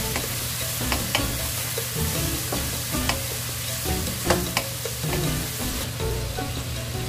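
Cubed pork belly sizzling in oil in a non-stick wok while a wooden spatula stirs it, clicking and scraping against the pan several times. The stirring stops near the end while the sizzling goes on.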